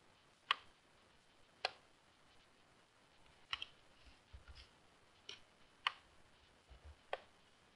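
Computer mouse clicks, about six short sharp clicks at uneven intervals, made while dragging and placing a photo in image-editing software.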